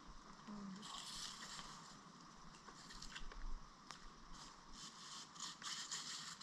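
Faint, uneven rustling and scraping of tarp fabric and cord being handled while the tarp is tied to a wooden stick used as a pole, with a few small ticks.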